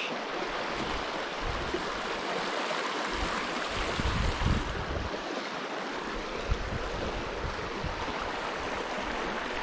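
Small mountain stream running over rocks, a steady rushing water noise, with low rumbles now and then that are strongest about four to five seconds in.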